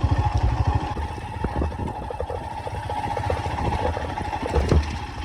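Motorcycle engine running on an off-road ride, its low pulsing beat strongest for the first second, then easing off. There are a couple of short knocks near the end.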